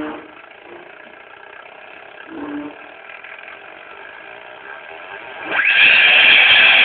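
CD-ROM drive motor run by a PIC microcontroller controller, turning slowly with a faint whine, then about five and a half seconds in it speeds up quickly into a much louder, steady high whine.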